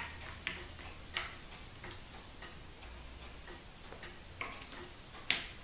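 Pancake batter sizzling as it goes onto a hot hinged non-stick flip pancake pan, a steady thin hiss, with several light clicks of the utensil against the pan and bowl.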